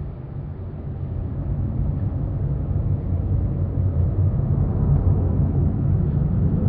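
A steady low rumble that slowly grows louder.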